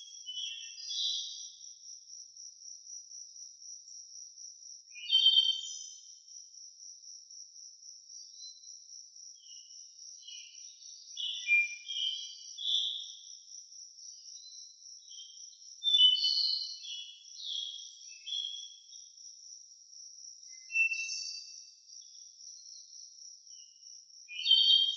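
A steady, high-pitched, evenly pulsing insect trill runs throughout. Songbirds sing short, varied phrases over it every few seconds, the loudest about five, eleven, sixteen and twenty-one seconds in.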